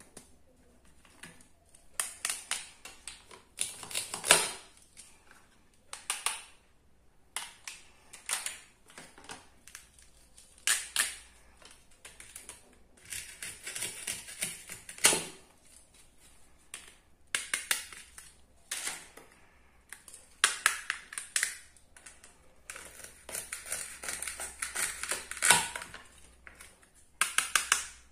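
Plastic toy food pieces being handled and cut apart with a plastic toy knife on a plastic cutting board: irregular bursts of rapid clicks and clacks, with a few longer scratchy rasps.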